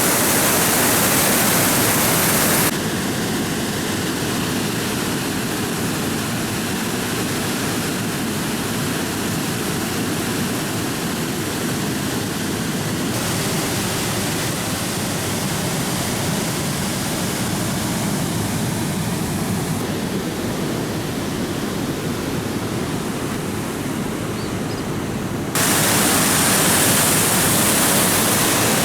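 Steady rushing roar of a waterfall, softer from about three seconds in and louder again near the end as the shots change.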